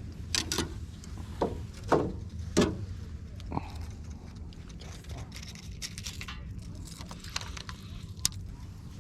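Handling noise in a small fishing boat: a run of sharp knocks and clatters in the first four seconds, then lighter scattered ticks, over a steady low hum.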